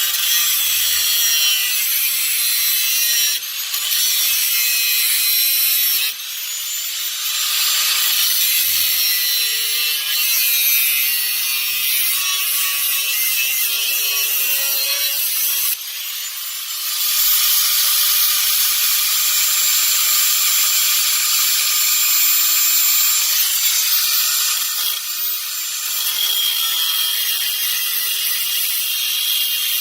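A power saw cutting through thin sheet-metal floor panel, a loud steady rasping that stops briefly and restarts a few times as the cut goes on.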